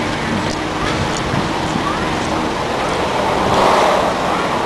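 Steady outdoor wind and road-traffic noise, with wind buffeting the microphone. About three and a half seconds in there is a louder rush of noise that lasts under a second.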